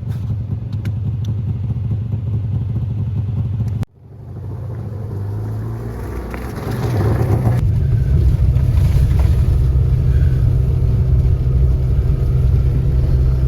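Subaru R-2's air-cooled 360cc two-stroke twin engine running. It breaks off sharply about four seconds in, then picks up speed and settles into louder, steady running.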